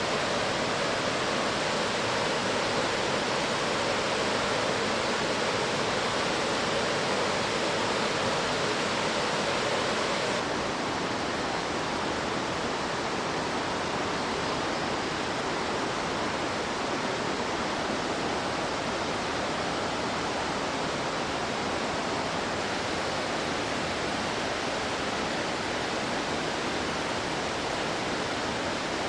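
Waterfall: steady, dense rush of falling water. The sound shifts and drops a little about ten seconds in.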